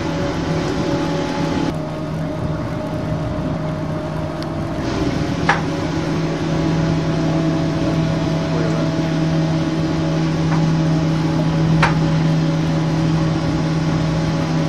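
A boat's engine running steadily at low speed, a constant hum, with two brief clicks about five and a half and twelve seconds in.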